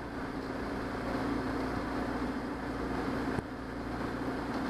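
Johnson 90 hp V4 two-stroke outboard motor running steadily with the boat underway, a constant engine hum under the rush of wind and water. The sound dips briefly about three and a half seconds in.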